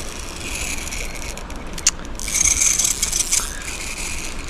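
Fishing reel working against a hooked pike, its drag and gears giving a high-pitched, ratcheting whirr. The whirr is loudest for about a second just past the middle, with a single sharp click shortly before.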